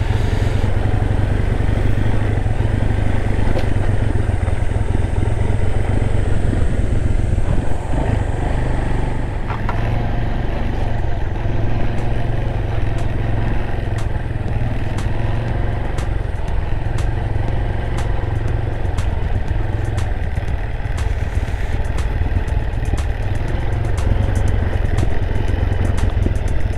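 Honda SL230's air-cooled single-cylinder four-stroke engine running steadily at low speed as the trail bike rides a rough, muddy forest track. Sharp ticks and clatter join in from about halfway through and come thick and fast near the end.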